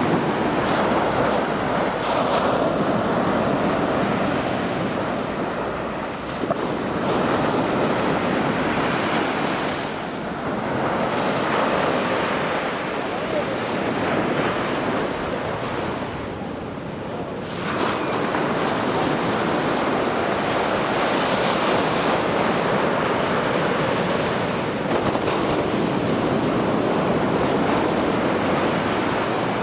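Waves from the Bay of Biscay breaking and washing up on a sandy beach, a continuous surf that swells and ebbs, dipping briefly a few times before the next break surges in. Wind buffets the microphone.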